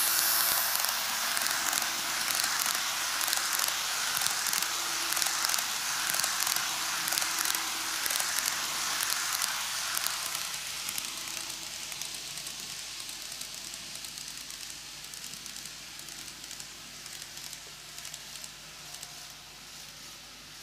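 N-gauge model train, a KATO ED79 electric locomotive hauling ten coaches, running past on plastic track: a rolling rattle full of small clicks from the wheels, loudest as the locomotive and first coaches pass and fading over the second half as the train moves away.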